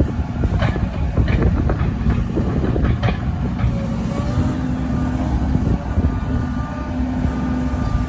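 Link-Belt 160X3 tracked excavator's diesel engine running under load, with hydraulic whine as the arm and bucket move. A few metallic clanks come in the first three seconds.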